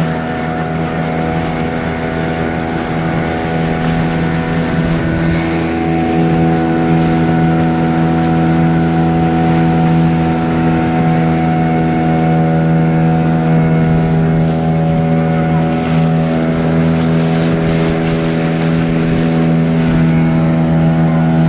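An engine running steadily at an even speed, a constant low hum with a few overtones that hold their pitch.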